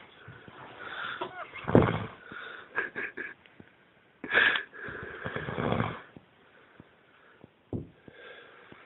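A passed-out drunk man snoring and wheezing in his sleep: slow, heavy breaths a few seconds apart, the loudest about a second in and about four seconds in.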